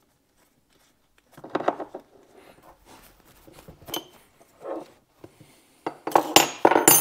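Metal hydraulic hose fittings clinking and knocking as a female quick-disconnect fitting is handled and screwed onto a hose end. Scattered clinks start after about a second and a half, with a louder, denser run of clanks near the end.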